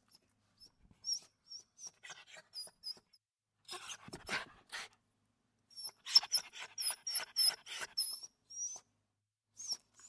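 A small dog huffing out short breaths as it plays, mixed with many short, very high squeaks. The sounds come in irregular clusters, densest and loudest in the second half.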